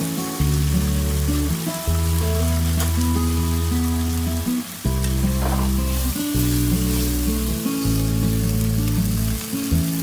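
Beef and vegetables sizzling in a frying pan, with the pan tossed once around the middle. Background music with a steady bass line plays over the sizzle.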